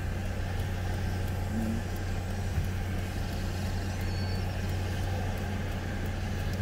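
Steady low engine hum and road noise of a car, heard from inside its cabin as it rolls slowly along.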